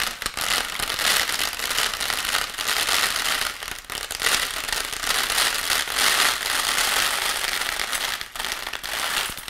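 Rice grains on a sheet of A4 paper, making a dense, steady crackle of tiny ticks: a foley imitation of rain.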